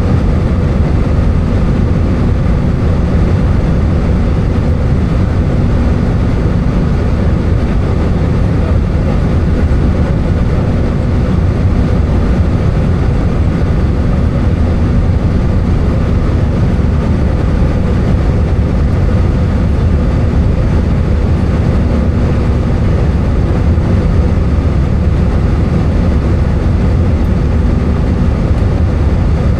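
Airbus A320 cabin noise in flight: a steady mix of engine and airflow noise with a low, even hum, unchanging throughout.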